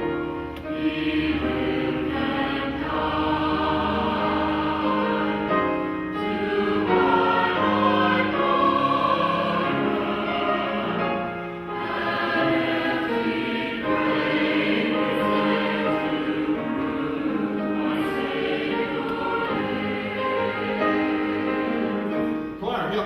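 Church choir singing with musical accompaniment.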